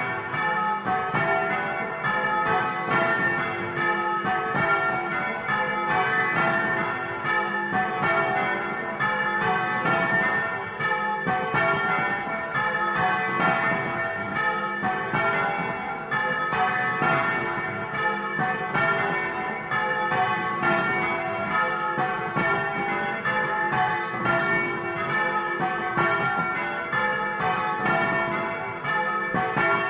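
Several church bells rung by hand with ropes, heard close up inside the bell chamber: a fast, unbroken run of strikes, several a second, their ringing overlapping. This is the Easter peal announcing the Resurrection.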